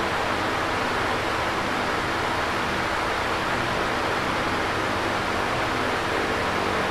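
Electric fan running steadily: a constant whooshing airflow with a faint low hum from the motor.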